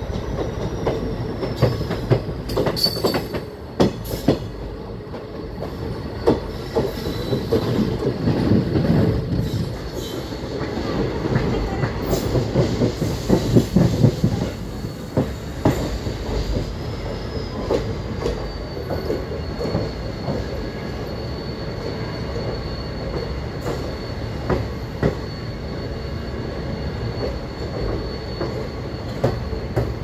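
Passenger train wheels running over the track: steady rumble and clatter with irregular sharp knocks, under a thin, high wheel squeal that slides down in pitch near the start and again about halfway through.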